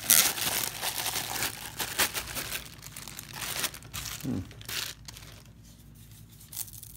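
Clear plastic packaging bag crinkling as it is pulled open and off a corrugated flex dust hose. It is loudest in the first second and dies away about halfway through.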